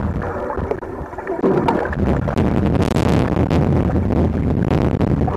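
Underwater sound heard from a camera submerged in a river: a dense low rumble of churning water with crackling air bubbles as swimmers kick past.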